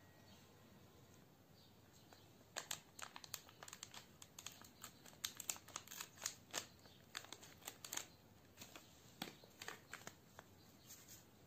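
A small packet crinkling as it is handled, torn open and shaken out: a run of sharp crackles that starts about two and a half seconds in and dies away near the end.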